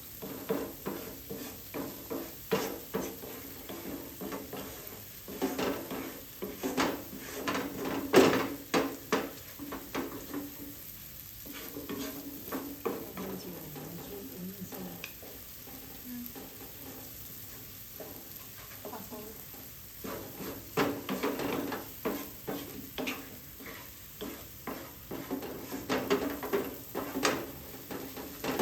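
A cooking utensil stirring food in a pan, with frequent irregular scrapes and knocks against the pan over a frying sizzle. The stirring eases off for a few seconds about midway, then picks up again.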